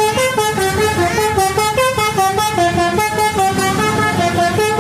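Bus 'telolet' horn: a multi-tone musical air horn playing a quick melody, its pitch stepping between notes several times a second, over a low engine rumble.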